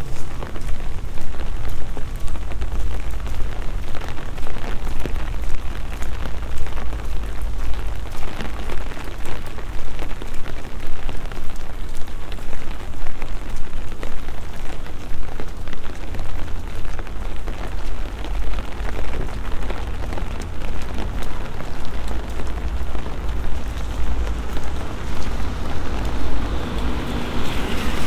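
Steady rain falling on wet paving, with many sharp close raindrop taps and a low rumble underneath.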